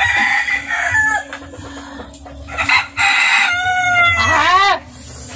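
A rooster crowing. A short call comes at the start, then a long, loud crow about three seconds in ends in a rising and falling note.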